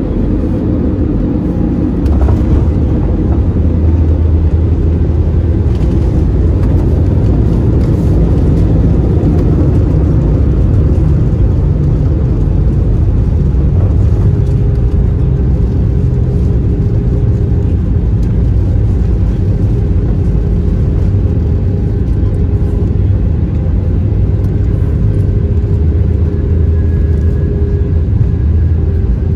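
Cabin sound of an Airbus A320-216's CFM56 engines in reverse thrust during the landing rollout on a wet runway. It is a loud, steady roar and rumble that steps up about two seconds in.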